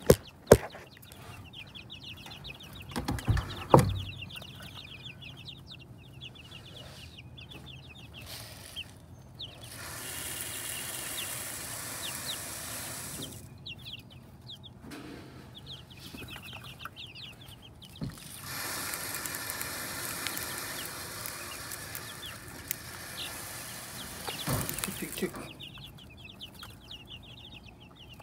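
Chickens clucking and calling in short repeated bursts. A few sharp knocks sound in the first few seconds, and two longer stretches of rushing noise come and go in the middle.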